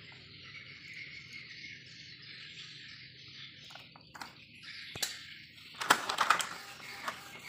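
Steady high chirring of insects in the background, then a few clicks and, about six seconds in, a short loud burst of clattering as the Epson L120 inkjet printer's mechanism starts up to draw in the paper for a test print.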